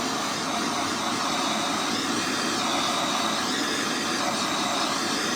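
Gas torch running with a steady hiss, heating a driveshaft U-joint to loosen its stuck caps.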